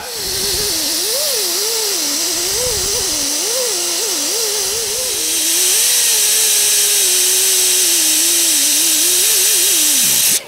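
Die grinder spinning a Scotch-Brite Roll-Lock bristle disc against paint-covered huck bolt heads on the truck cab, stripping off the paint. It makes a loud hiss under a whine that wavers up and down as the disc is pressed on and eased off. Just before the end it is shut off and winds down quickly.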